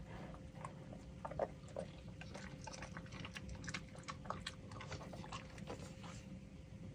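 A dog eating a piece of toasted, buttered pancake off a carpet: faint chewing and mouth smacking, heard as a loose string of soft clicks.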